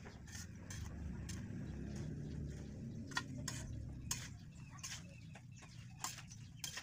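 Steel spatula scraping and clinking against a steel kadai as chunks of badhar pickle are stirred through the spice masala, in irregular scrapes and taps.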